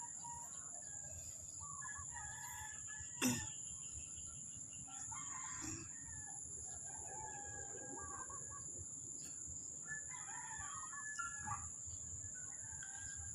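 Chickens clucking and a rooster crowing, faint, with short calls every second or two over a steady high-pitched tone. A single sharp knock comes about three seconds in.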